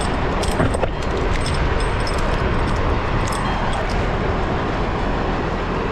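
Wind buffeting the microphone high up in a tree, a steady rushing roar with a few faint clicks about a second in.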